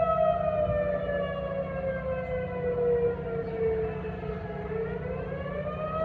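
Outdoor warning siren sounding during a scheduled test: one wailing tone that slides slowly down in pitch for about four seconds, then starts climbing back up near the end.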